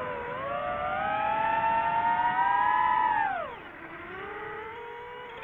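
FPV quadcopter's motors and propellers whining, with several pitches moving together. The pitch climbs for about three seconds, drops steeply as the throttle is pulled back, then slowly rises again.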